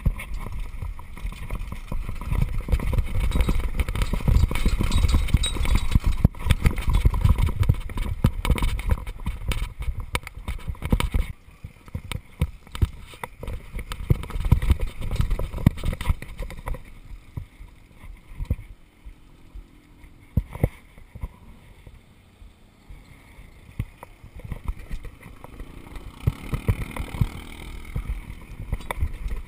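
Downhill mountain bike rattling over a rough dirt and gravel trail, with a dense run of sharp knocks and clatter from the bumps. The clatter is heavy for the first ten seconds or so, then eases to a quieter, sparser rumble about halfway through.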